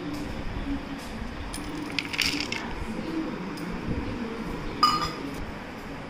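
Dry fried snacks (peanuts, chana and crunchy bits) tipped from a steel bowl clatter onto a ceramic plate about two seconds in. Just before the end, one sharp clink that rings briefly, dish knocking against dish.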